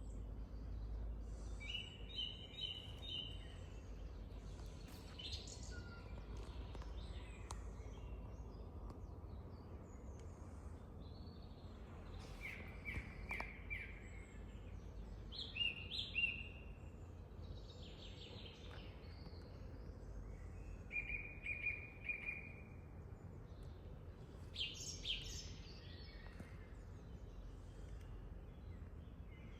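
Songbirds singing: short phrases of rapidly repeated high notes every few seconds, over a steady low rumble.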